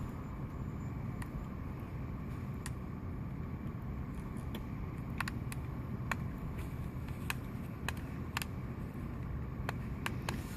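Steady low hum with a scattered run of light clicks and ticks, from fingers working a small rubber tire onto a car radio's volume knob.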